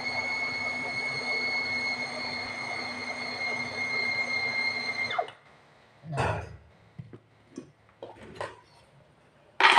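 Electric mini food chopper with a stainless steel bowl running with a steady high whine as it grinds fish, garlic and seasoning into a smooth paste for fish balls. It cuts off about five seconds in. A dull thump, a few light clicks and a loud knock near the end follow.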